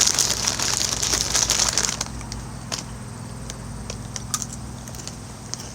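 A crinkly snack bag being handled: dense crinkling for about the first two seconds, then scattered single crackles.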